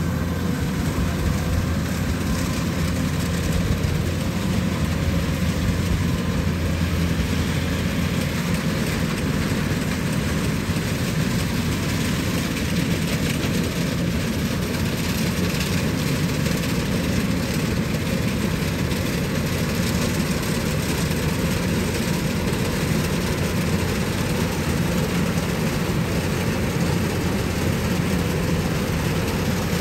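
Kubota DC-105X combine harvester running steadily under load as it cuts and threshes lodged rice, a constant low engine hum with the clatter of its threshing machinery.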